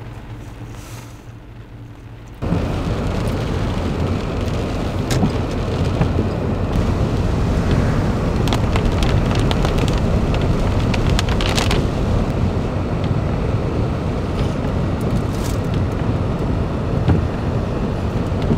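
Toyota Sequoia driving in heavy rain, heard from inside the cabin: a steady, loud wash of rain and wet-road tyre noise with scattered ticks, which starts suddenly about two seconds in after a quieter low hum.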